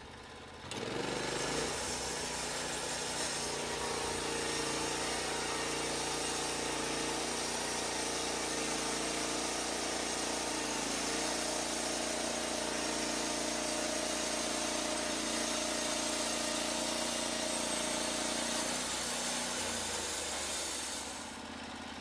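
Norwood Lumber Pro HD36 portable band sawmill running, its engine coming up to speed about a second in and the blade sawing steadily through a log, then dropping away near the end.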